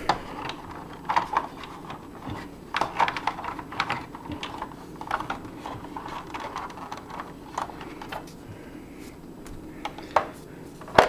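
Hard plastic clicking and knocking at irregular moments as the tinted plastic cockpit canopy of a G.I. Joe Eaglehawk toy helicopter is handled and fitted into place.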